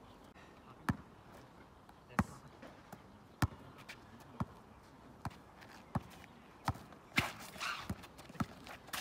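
Basketball dribbled on an asphalt court: single sharp bounces about once a second, coming quicker in the second half. A short burst of noise comes about seven seconds in.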